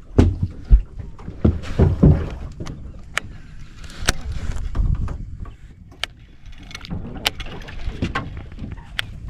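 Irregular knocks, clunks and sharp clicks of gear being handled in a small boat, over a steady background hiss. Low thumps are heaviest in the first second and again around two seconds in.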